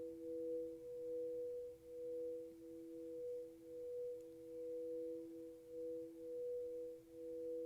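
Crystal singing bowls ringing with two steady sustained tones together, one lower and one higher, their loudness gently wavering about once a second.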